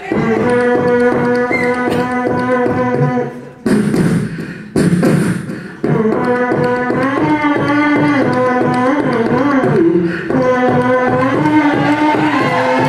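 Beatboxing through a stage microphone: a held hummed note over a steady mouth-percussion beat. About four seconds in it breaks into two short noisy hissing bursts, then comes back as a hummed melody that moves up and down over the beat.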